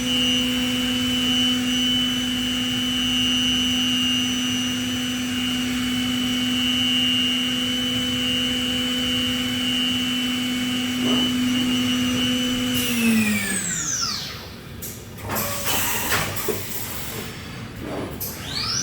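Okuma Genos M560-V machining center's spindle running at a steady high speed with a whine, then spinning down about thirteen seconds in. A few seconds of clunks and clicks follow, and the spindle whine rises again as it spins back up near the end.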